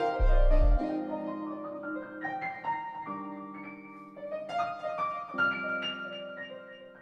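Piano playing a slow blues: a deep bass note just after the start, then chords under a rising line of single notes that ring and die away. The music fades out toward the end.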